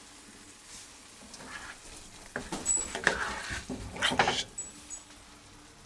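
Ladle spooning chunky tomato sauce onto penne in a bowl: after a couple of quiet seconds, a short run of soft wet plops and scrapes with a couple of light knocks.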